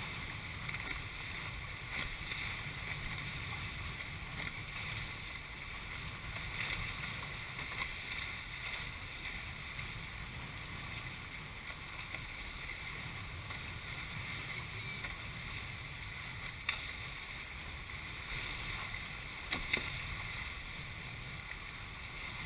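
Water rushing and splashing along the hulls of a Hobie 21SE catamaran under sail, with wind rumbling on the microphone. A few short sharp slaps stand out, the two loudest a bit over halfway through and near the end.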